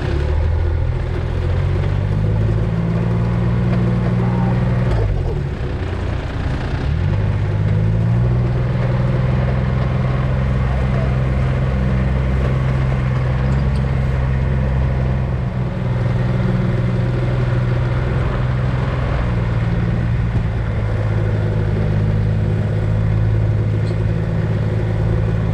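Engine of the mustering vehicle that carries the camera, running steadily while it drives across the paddock. Its pitch drops briefly and picks up again around five to seven seconds in as the throttle changes.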